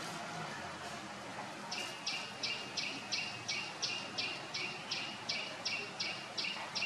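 Rhythmic high-pitched chirping, about three chirps a second, starting about two seconds in, over a steady outdoor background.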